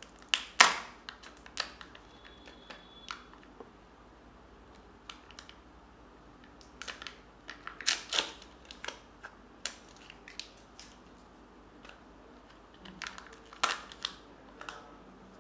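Plastic Kinder Joy egg being snapped open and its foil seal peeled back: sharp plastic clicks and foil crackles. The loudest click is about half a second in, with further clusters around eight seconds and near the end.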